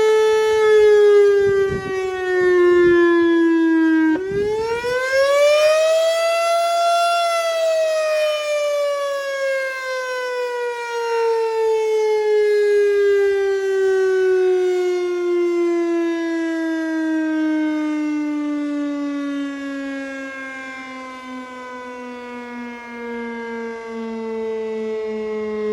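Outdoor tornado warning siren sounding one pitched wail. It drops slightly, climbs sharply about four seconds in, then winds down slowly, falling steadily in pitch.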